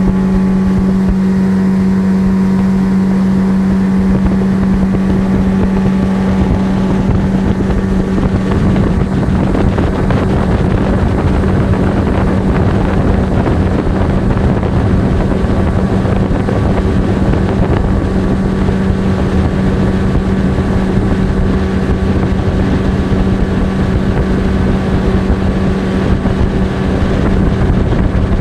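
Mid-1980s Yamaha 8 hp two-stroke outboard motor running at a steady speed, pushing a 3-metre aluminium boat, with a steady hum. Wind noise on the microphone grows stronger after about six seconds.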